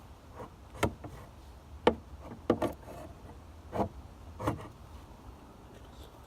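About six short, irregular rasping strokes of a hand file on an old sickle's steel blade, knocking off burrs. They stop about five seconds in.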